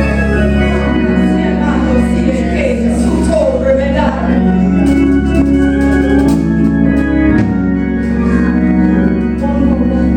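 An organ plays long sustained chords as soft background music for prayer, with a steady low hum underneath.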